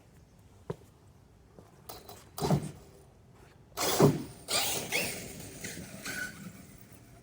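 ARRMA Kraton RC truck's electric motor whining in bursts of throttle: a short blip about two and a half seconds in, then a longer run of acceleration from about four seconds in that rises and falls in pitch before easing off.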